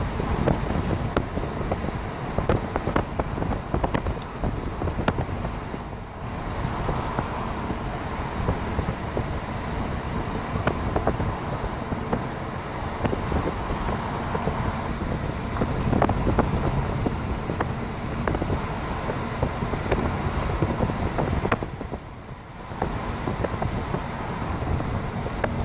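Continuous road and traffic noise from a moving vehicle, with wind on the microphone and frequent small rattles and knocks. It eases briefly near the end.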